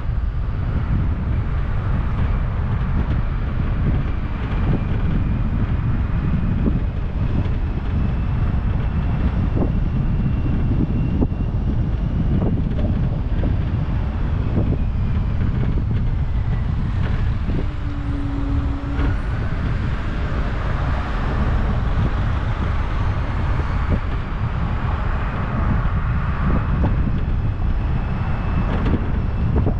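A car on the move: steady low road and tyre rumble mixed with wind noise buffeting the microphone.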